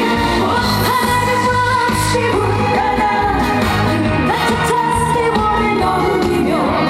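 A trot song performed with singing over a backing band track with a steady beat.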